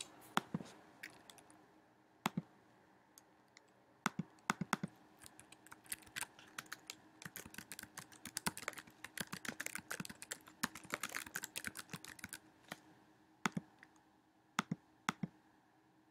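Typing on a computer keyboard: a few separate keystrokes, then a quick run of rapid keystrokes through the middle, then a few single clicks near the end.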